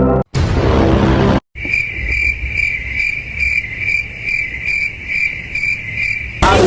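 Insect chirping: a high, steady trill that pulses about twice a second, after a short burst of rushing noise.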